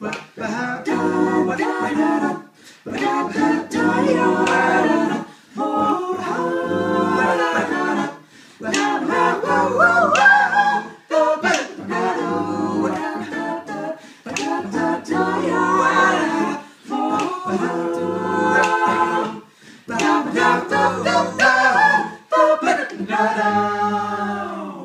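Mixed-voice a cappella group of six singing a jazzy close-harmony arrangement in phrases, with a low bass line under the chords and sharp percussive clicks keeping time. The song ends on a held chord near the end.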